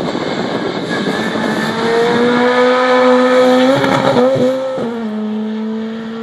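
Ford Fiesta rally car's engine held at high revs, a steady strong note that grows louder as the car arrives. About four seconds in the car goes over a jump: the note wavers and briefly breaks around the landing, then settles slightly lower as the car drives away.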